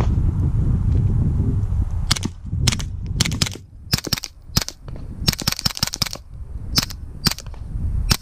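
Suppressed 9mm gunfire through a Rugged Obsidian 9 suppressor: a string of a dozen or more shots starting about two seconds in, irregularly spaced, with a quick run of shots near the middle.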